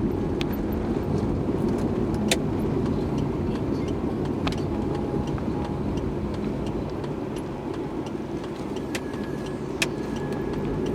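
Steady road and engine noise inside a moving car's cabin, with a few scattered light clicks and rattles.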